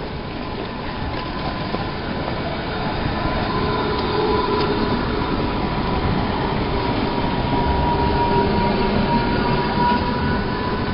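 Steady vehicle rumble with a high whining tone running through it, growing louder over the first few seconds and then holding.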